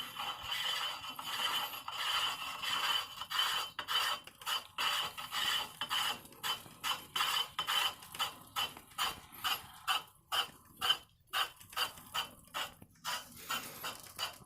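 Jetblack WhisperDrive smart bike trainer making a mechanical scraping, grinding noise. It runs fairly continuously at first, then pulses about twice a second as it turns. It is the abnormal noise of a faulty trainer that no longer controls resistance.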